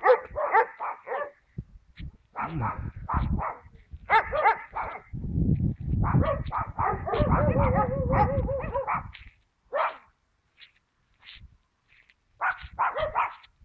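A dog barking in rapid bursts of yaps, with a low rumble underneath from about five to nine seconds in; the barks grow sparser near the end before one last short burst.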